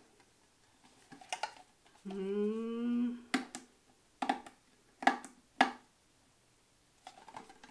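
A handful of sharp clicks and taps of fingers and nails on a small metal biscuit tin as she tries to work its stubborn lid open. About two seconds in comes a hummed 'mmm' lasting about a second, rising slightly.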